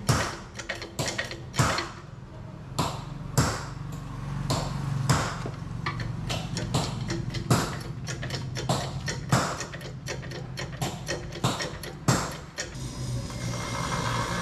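Hand-pumped hydraulic shop press being worked, pressing an axle bearing: a run of sharp metallic clicks and clanks from the pump handle and ram, irregular at first and then about two or three a second, stopping shortly before the end. A steady low hum runs underneath, and a steady whirring starts near the end.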